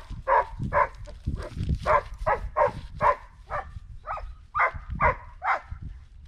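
A dog barking over and over, about two to three barks a second, stopping shortly before the end.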